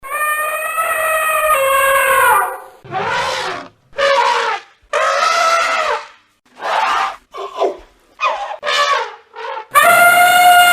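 An animal calling repeatedly in loud, pitched, brassy calls: one long call, a run of shorter ones with short gaps, and another long call near the end.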